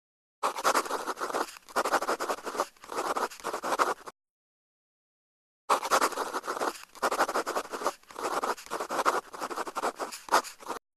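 Scratchy pen-writing sound effect: quick scribbling strokes in two long stretches, with about a second and a half of silence between them.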